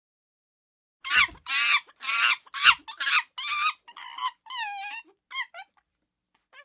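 A run of about ten short, high-pitched animal calls in quick succession, starting about a second in, followed by a few faint chirps near the end.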